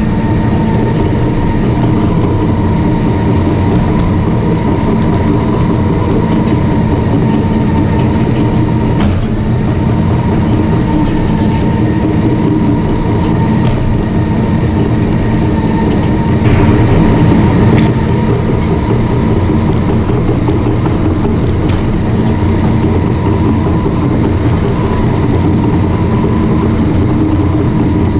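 Caterpillar D5 crawler bulldozer working: its diesel engine runs steadily under a clanking, rattling steel track, with a steady whine over the rumble. About sixteen seconds in there is a brief, louder burst of noise.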